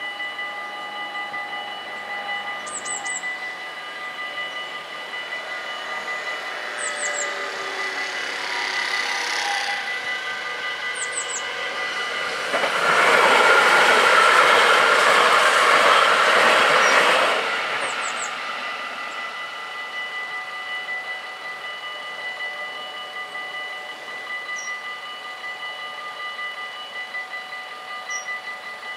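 Dutch level-crossing warning bells ringing steadily while an NS Sprinter Lighttrain electric train passes over the crossing. The train's passing noise builds up and is loudest for about five seconds in the middle, then fades. The bells stop just before the end as the barriers lift.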